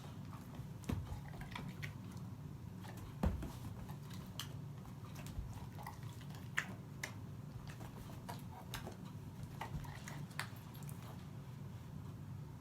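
A small pet hiccupping: irregular soft clicks and low thumps every second or so, the loudest about three seconds in.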